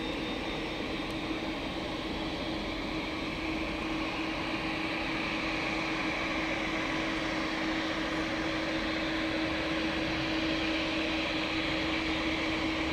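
Boeing 787-9's Rolls-Royce Trent 1000 turbofans running at taxi power: a steady whine and hiss over a constant low hum. It grows slightly louder as the airliner taxis closer.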